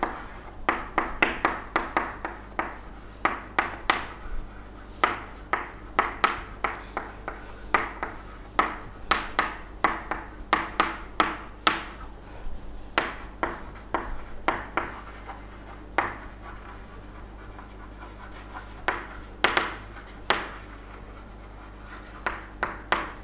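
Handwriting: a writing tool scratching on a writing surface in quick, irregular strokes, which thin out for a few seconds in the latter part before picking up again.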